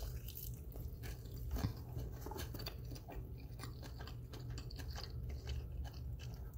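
A person chewing a bite of honey barbecue chicken wing, with many small quiet mouth clicks and one slightly louder click about one and a half seconds in.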